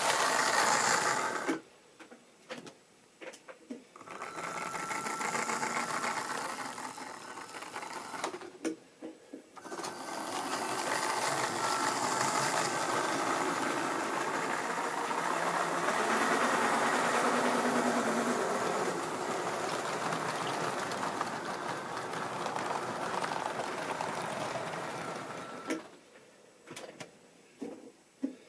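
Model railway diesel locomotive running past, its small electric motor whirring and its wheels rattling and ticking along the track as it hauls a rake of coaches. The sound swells and dips as the train moves nearer and farther on the layout, then fades away near the end.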